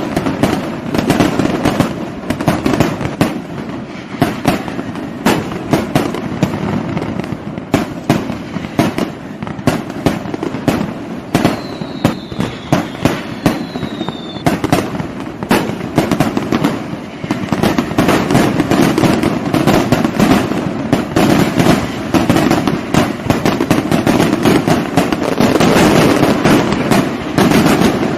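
Fireworks going off in a dense, continuous barrage of bangs and crackles. Partway through, a high whistle glides down in pitch for about three seconds.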